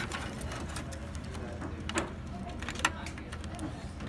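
Handling noise and a few sharp plastic clicks as a cable and parts are worked into place inside a desktop computer case, the clearest clicks about two seconds in and near three seconds, over a steady low hum.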